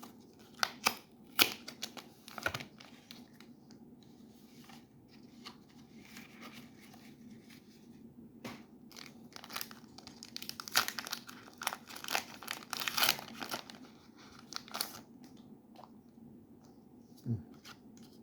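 Foil booster-pack wrapper being torn open and crinkled, in bursts of sharp crackling that come in clusters near the start and again about ten to fifteen seconds in.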